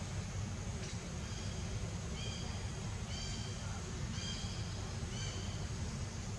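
A bird giving short, high, clear call notes, about one a second, over a steady low rumble.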